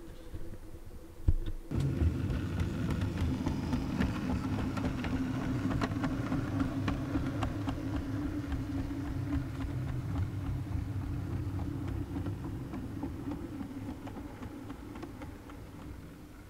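OO gauge model trains running on the layout: a steady low motor hum and rumble, with wheels clicking over the rail joints. It starts about two seconds in and fades toward the end.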